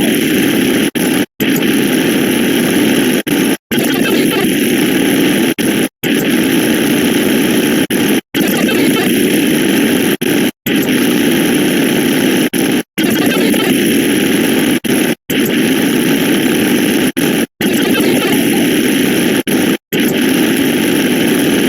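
A loud, dense cacophony of many sound effects layered and playing at once. It cuts out to silence for a moment about every two seconds.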